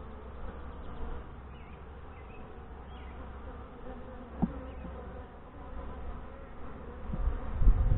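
Saskatraz honey bees buzzing at an open hive with a steady hum while a frame crowded with bees is lifted out. A single short knock comes about four and a half seconds in, and a low rumble builds near the end.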